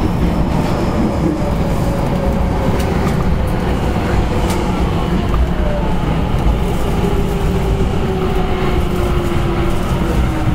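Osaka Midosuji Line 10 series subway train (IGBT-inverter car) running, heard from aboard: a steady rumble of wheels on track, with the traction inverter and motor whine slowly falling in pitch as the train slows.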